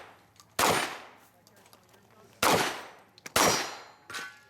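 Three shotgun shots from a semi-automatic shotgun, the first about half a second in, then two about a second apart near the end, each with a short echoing tail.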